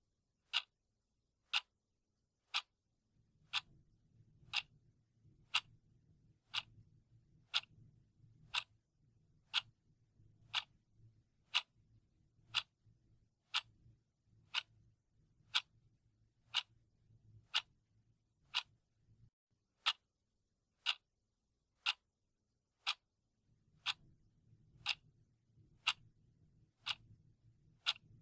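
Clock ticking at an even one tick per second, each tick short and sharp.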